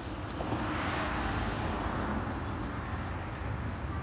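A rushing noise that swells about half a second in and eases off near the end, over a steady low rumble.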